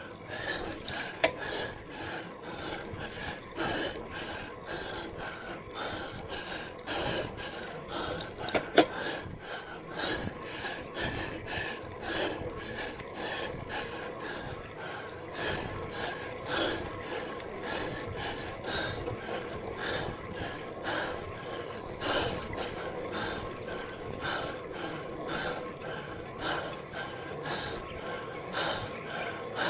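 A cyclist breathing hard and rhythmically, about two breaths a second, out of breath from the effort of a steep climb. Two sharp clicks come about a second in and again about nine seconds in.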